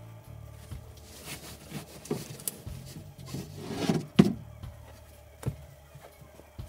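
Upholstered bench cushions and plywood bed panels being shifted by hand: rubbing and scraping of fabric on wood, with several knocks, the loudest a little after four seconds and another about a second later.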